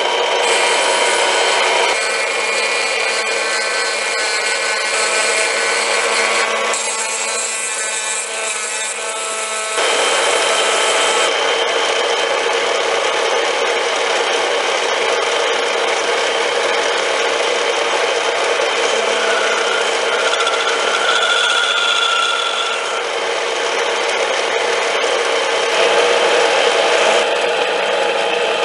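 Metal lathe running while a brass-and-copper spinning top is machined on it: a continuous scraping, rubbing noise from the work, with steady whining tones under it. The sound shifts in character a few times as the work goes on.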